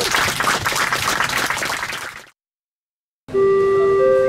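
A crowd applauding, with clapping and a few voices, cut off abruptly about two seconds in. After a second of silence, music with long held notes begins.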